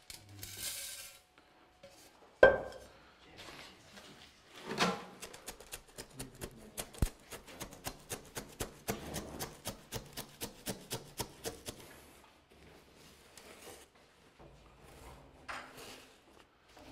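Granular bonsai substrate being worked into the root ball of a potted tree. There is a single knock about two and a half seconds in, then a quick run of short scraping ticks, about five a second, for some six seconds, fading to faint rustling.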